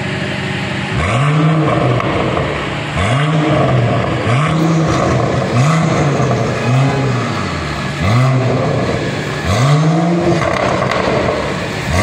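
Mercedes-AMG GLE 53's turbocharged inline-six blipped repeatedly through an aftermarket performance exhaust: about eight quick revs, each rising and falling in pitch, with sharp pops and crackles as the revs drop.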